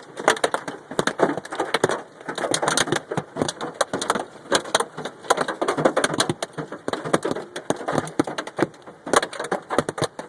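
Hail pelting a Mazda Miata: a dense, irregular clatter of hailstones striking the car.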